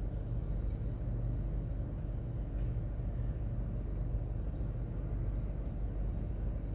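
A steady low mechanical rumble with a faint even hum, and a couple of faint light clicks.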